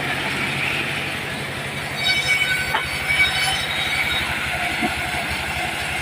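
Diesel engine of a mobile wood-sawing machine running steadily with an even low thrum. About two seconds in, a high metallic whine of several pitches joins it for a second and a half, then fades.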